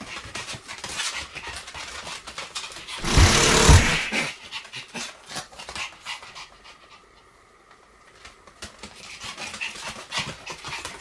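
Pomeranian play-fighting: panting and scuffling, with a loud burst of noise and thumps about three seconds in, then a quieter stretch past the middle.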